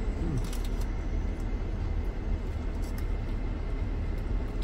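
Steady low rumble inside a minivan's cabin, with a few faint clicks from eating a burger.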